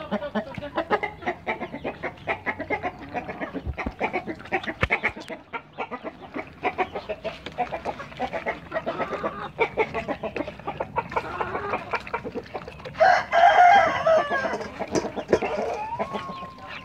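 Chickens clucking, with a rooster crowing loudly about 13 seconds in. Throughout there are quick clicks and smacks from puppies eating from a steel bowl.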